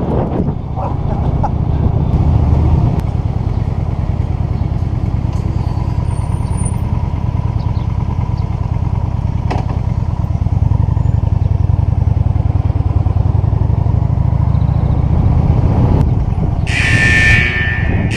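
Honda Shadow VT750's V-twin engine running steadily. Near the end a loud, high-pitched electronic beep sounds for about a second.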